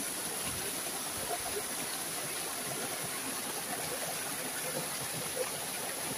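Mountain stream pouring down a small rocky cascade between boulders: a steady rushing of water.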